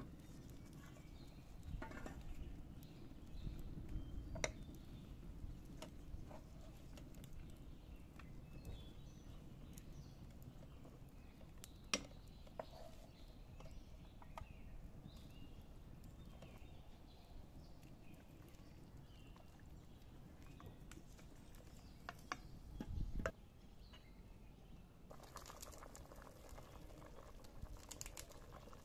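Faint cooking sounds: scattered light clicks and knocks of a wooden spoon and pot lid on metal pots, then, near the end, a pot of stew bubbling at the boil over the wood fire.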